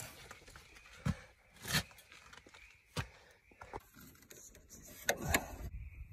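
A few light, separate knocks and clicks of hand handling, about a second apart, then a louder cluster of knocks and rustling about five seconds in, over a quiet outdoor background; no engine running.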